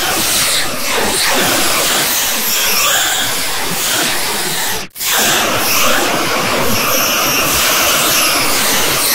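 Logo audio pushed through layered editing effects until it is a loud, harsh, noise-like distortion with no clear melody left. About five seconds in it cuts out for an instant, then starts again.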